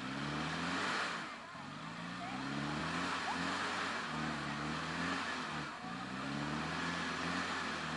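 Off-road 4x4 engine revving in repeated bursts, its pitch climbing about once a second as it is pushed through the course.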